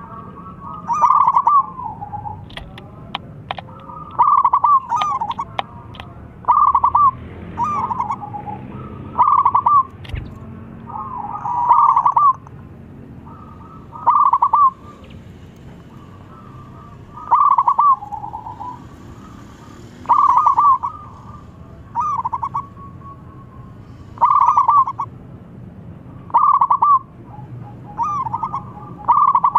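Zebra dove cooing: short phrases of quick rolling coo notes, repeated every one to three seconds with a longer pause about halfway through.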